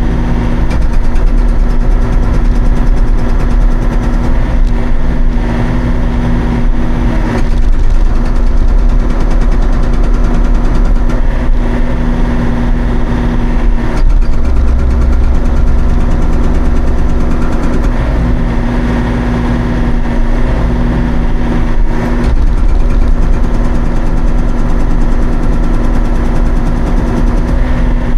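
Hauyee 35c mini excavator's diesel engine running steadily, with brief dips about 7, 14 and 22 seconds in.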